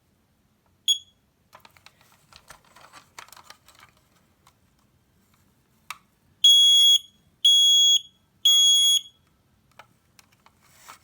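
SA303A ionization smoke alarm being tested. A short high beep about a second in, then faint scattered clicks, then three loud high-pitched beeps of about half a second each, evenly spaced: the standard three-beep evacuation pattern.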